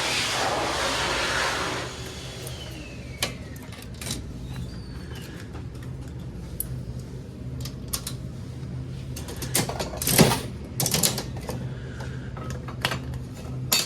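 Coin-operated prize vending machines being played: scattered sharp mechanical clicks and clatter, with a cluster of louder ones about ten seconds in, over a steady low hum. A hiss runs through the first two seconds.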